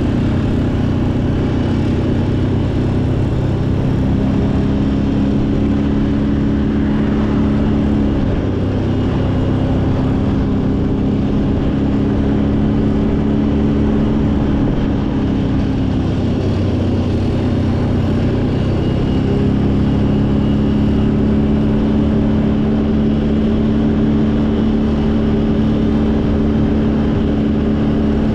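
ATV engine running, its pitch dropping and rising a few times as the throttle changes.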